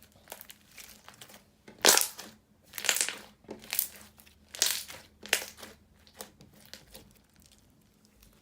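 Thick and glossy slime with foam beads being squished and pressed by hand, giving a run of crunchy, crackling squelches, the loudest in the middle few seconds.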